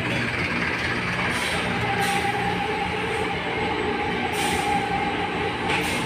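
Diesel engine of a mobile hydraulic crane running steadily under load while it holds a heavy machine above a truck bed, with a steady whine over the engine drone.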